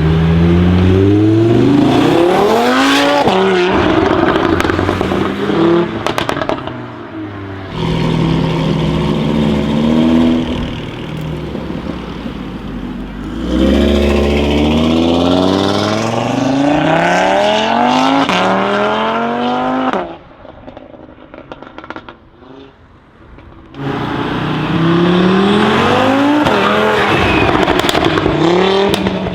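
Tuned Audi RS3 five-cylinder engine with a downpipe, held at steady revs and then launching and accelerating hard with quickly rising revs, several times over. Short crackles and pops sound in the gaps between the pulls, loudest in a quieter stretch about two thirds of the way through.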